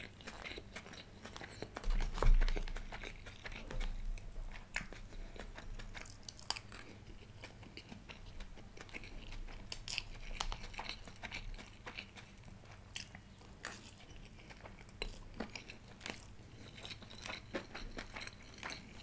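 Close-miked eating sounds: chewing and wet mouth clicks as chicken dum biryani is eaten by the spoonful, with the spoon scraping in the paper cup. One louder low thump comes about two seconds in.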